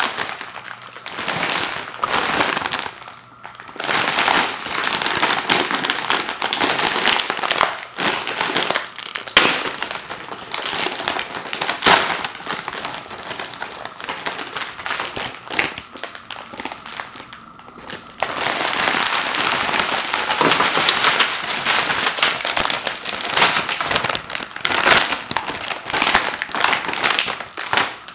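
Plastic candy bag crinkling and rustling as it is torn open and handled. From about two-thirds of the way through, louder, denser rustling as the individually wrapped fun-size candies are poured out of the bag onto a wooden floor.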